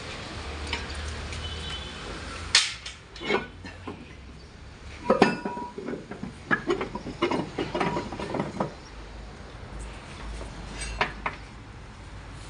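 Steel tractor transmission parts and hand tools clanking and clinking as they are handled on the open rear-axle housing. A sharp knock comes about two and a half seconds in, then a run of quick clinks and knocks in the middle, and two more near the end.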